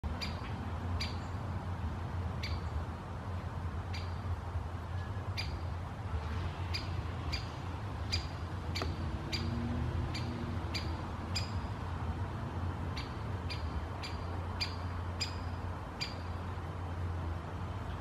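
Great spotted woodpecker giving its sharp single 'kik' calls, about twenty of them, irregularly spaced half a second to a second and a half apart, stopping shortly before the end. A steady low rumble runs underneath.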